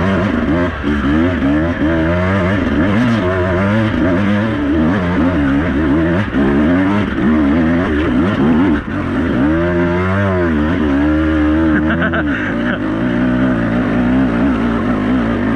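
Enduro dirt bike engines revving, their pitch rising and falling again and again, over a steady low drone that drops away about twelve seconds in.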